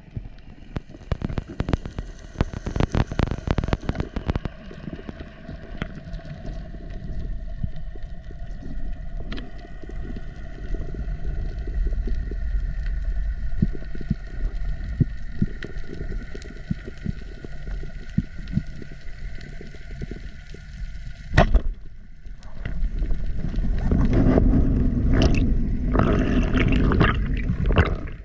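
Underwater ambience with scattered clicks and a steady faint hum, then a single sharp crack of a speargun firing about 21 seconds in, followed by several seconds of loud rushing, churning water noise.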